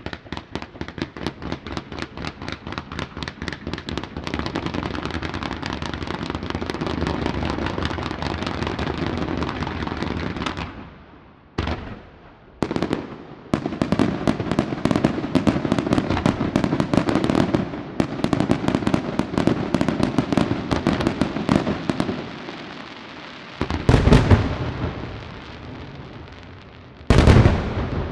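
Fireworks display: low-level multi-shot fireworks firing in quick regular shots, about four a second, building into a dense crackling barrage. After a short lull with two single bangs comes another dense barrage, then two heavy booms of large aerial shells bursting, the second near the end.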